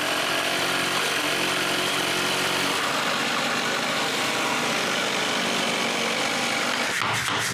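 A power tool's motor running steadily at one speed, a constant whine over a noisy hiss. Near the end it gives way to sharp knocks.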